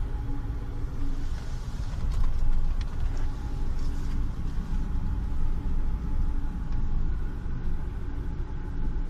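Subaru Forester driving, a steady low rumble of road and tyres with a faint whirring tone on top that tracks wheel speed, a little like a speedometer cable. The owner traced this whir to a stuck brake pad guide.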